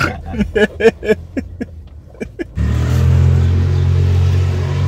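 Men laughing in short repeated bursts, then an abrupt cut about two and a half seconds in to a steady, louder low mechanical drone.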